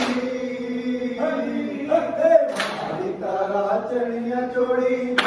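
A devotional garba song chanted by a group of voices on long held notes, with a sharp crash about every two and a half seconds.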